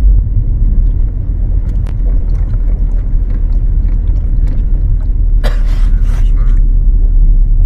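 Steady low road and running rumble inside a 2012 Ford Focus on the move, with a few faint light clicks and a short scratchy noise about five and a half seconds in.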